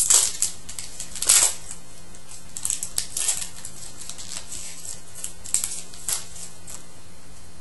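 A hockey trading-card pack being torn open and its wrapper crinkled as the cards are pulled out and handled: a string of short, irregular crackling rustles, the loudest near the start and about a second in.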